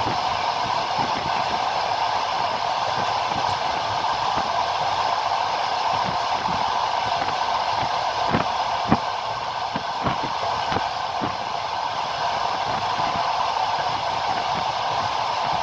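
Passenger train running along the track: a steady rumble of wheels on the rails, with a few sharp clacks of wheels over rail joints about halfway through.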